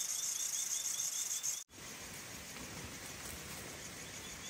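Forest insects chirping in a quick, steady pulse of about five chirps a second over a high hiss, cut off abruptly about a second and a half in; after that only a quieter, even outdoor background.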